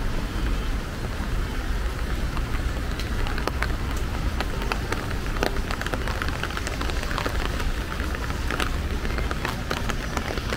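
Steady rain in a city street: a constant hiss with many sharp drop ticks scattered through it, over a steady low rumble.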